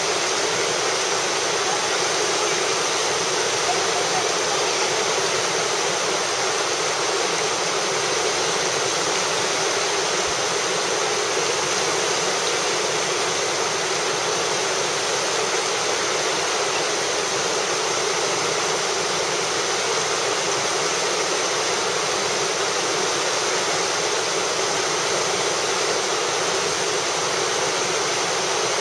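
Steady rush of whitewater in a river rapid, an even, unbroken noise with no change in level.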